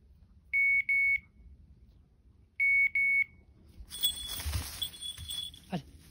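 A hunting dog's beeper collar sounding two double beeps about two seconds apart, each a steady high tone. About four seconds in, brush and dry leaves rustle and twigs snap as someone pushes through the undergrowth, with two brief falling tones near the end.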